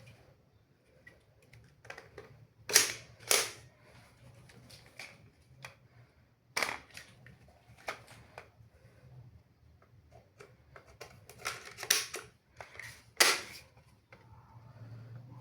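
Toy break-action shotgun dart blaster being reloaded and fired: a string of sharp plastic clicks and snaps, about five loud ones among smaller handling clicks.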